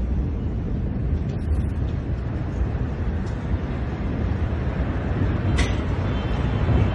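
Steady low roar of fast-flowing floodwater rushing down a street, with a brief click about five and a half seconds in.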